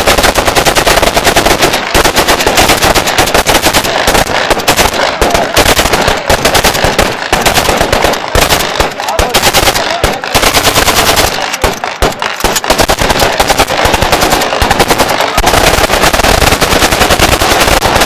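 Celebratory wedding gunfire: rapid automatic fire, the shots following so closely that they nearly run together, with brief lulls around the middle.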